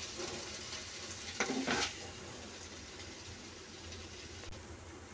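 Wooden spatula scraping and stirring thick, sticky lapsi out of a nonstick pan into a glass bowl, with two louder scrapes about one and a half seconds in, over a faint steady hiss.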